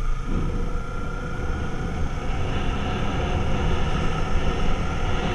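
Motorcycle engine running at low street speed, with wind and road noise on the bike-mounted camera's microphone that swells about halfway through.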